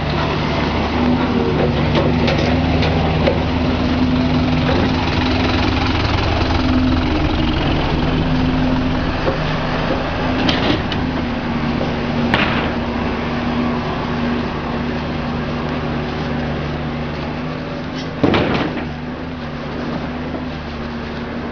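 An engine running steadily at idle, with a few short knocks; the loudest knock comes near the end.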